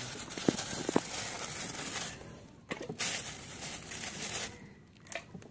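Thin plastic bag of small round eggplants rustling and crinkling as it is handled on a dial scale, with two sharp clicks about half a second apart near the start.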